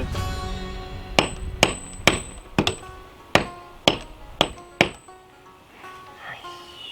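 Hammer striking a metal bolt, about eight blows at roughly two a second, each ringing briefly, stopping about five seconds in.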